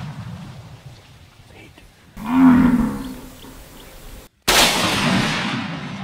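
A Cape buffalo bellows once, a low call of about a second that rises and falls in pitch. About four and a half seconds in comes a hunting rifle shot at the buffalo: a sharp crack with an echo fading over a second or more.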